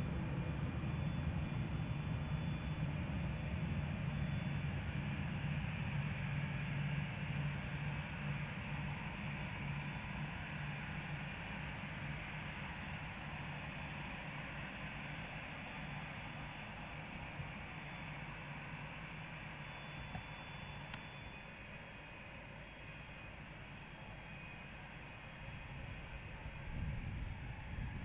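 Twin-engine jet airliner taxiing in at low power, a steady low engine rumble with a faint whine that slowly fades. Throughout, a high, fast, evenly spaced chirping of insects.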